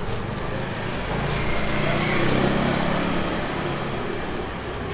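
Street traffic with a light engine passing, loudest about two seconds in.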